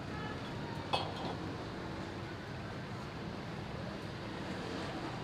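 Steady roadside background noise with a single metallic clink about a second in, like a metal utensil knocking against the big aluminium pulao pot.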